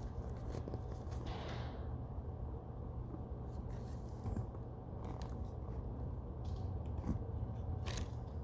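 Scissors snipping and scraping through a squishy toy: a handful of sharp snips spread apart, with a short scraping swish about a second in. A steady low hum runs underneath.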